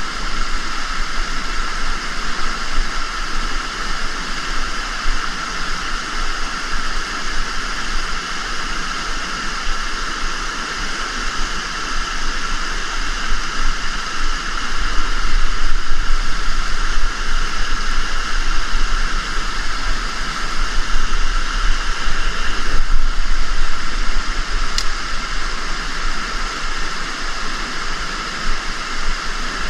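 Rushing river water running over rocks as a loud, steady hiss, swelling a little in the middle.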